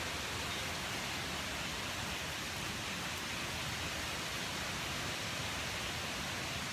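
Steady, even hiss of water, with no buzzing or other distinct sound standing out.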